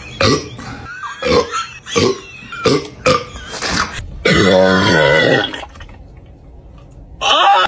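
A person burping after chugging carbonated soda: one long, wavering burp about four seconds in, after a run of short sharp throat sounds about every half second. There is another short loud sound near the end.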